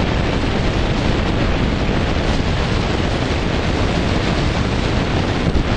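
Wind buffeting the microphone of a camera filming from a moving motorbike: a loud, steady rush, heaviest in the low end, with vehicle noise underneath.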